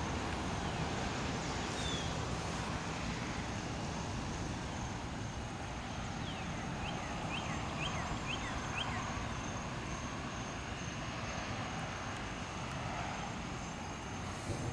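A steady outdoor rushing noise, with a bird giving a quick run of about six short down-slurred chirps around the middle.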